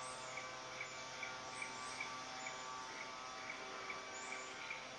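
Outdoor ambience: a short chirp repeats about two to three times a second, with scattered high bird calls and a steady hum underneath.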